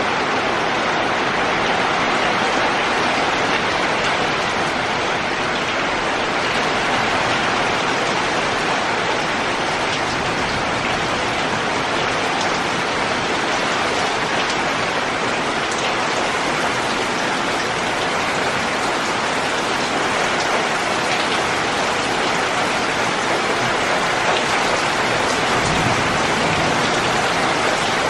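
Heavy rain falling steadily on a corrugated metal roof and concrete-block walls, with runoff streaming off the roof edge.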